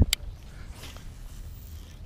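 A single sharp click just after the start, then only faint low wind noise on the microphone.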